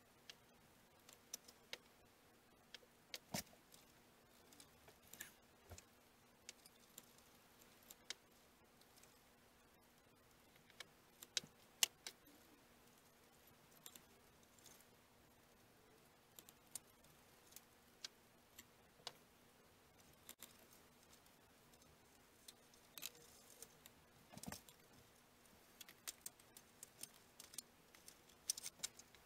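Mostly quiet, with scattered small clicks and taps from hand work on a balsa model fuselage at a workbench: tools, a glue bottle and balsa strips being picked up and set down. A faint steady hum lies underneath.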